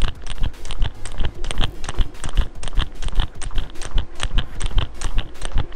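A skipping rope slapping the tiled paving and a sneaker landing on each single-foot hop, in a steady rhythm of about two sharp clicks a second.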